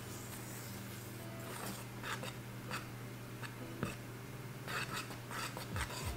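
A wooden toothpick swirled through cake batter in an aluminium chiffon tube pan, scratching lightly against the pan in several short, soft strokes to break up big air bubbles, over a steady low hum.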